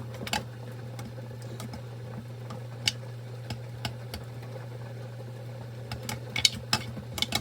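A spoon clicking and scraping against a pan as meatballs are stirred, a few scattered taps with a quick run of them near the end, over a steady low hum.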